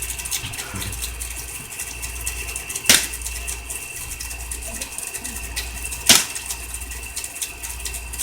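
Two sharp airsoft gun shots about three seconds apart, over a steady low rumble.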